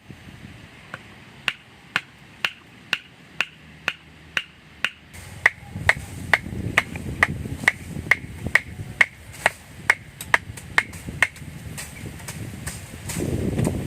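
A hand tool striking at a steady rhythm, about two blows a second, each with a short ring; the blows stop near the end. Beneath them a low rushing noise builds from about halfway and grows louder near the end.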